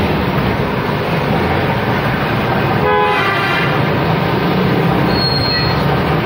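A vehicle horn gives a short toot about three seconds in, over steady, loud background noise of engines and traffic.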